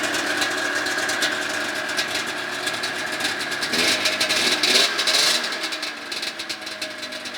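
1997 Ski-Doo Formula 583 snowmobile's two-stroke twin engine running at idle. It gets louder for about a second and a half around the middle, then settles back to a quieter idle.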